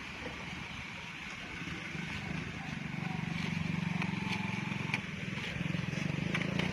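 A motor vehicle's engine running close by, growing louder about a second and a half in and staying loud, with a few sharp clicks near the end.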